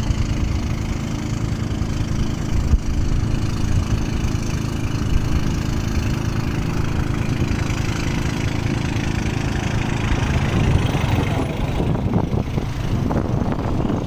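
A boat's engine running steadily while under way, a constant low hum over the rush of wind and water. The hum stops about twelve seconds in.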